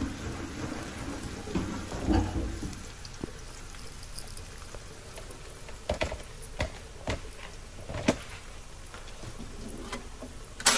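Chopped onions sizzling steadily in hot oil in a frying pan, with a few sharp pops or clicks scattered through the middle of the sound.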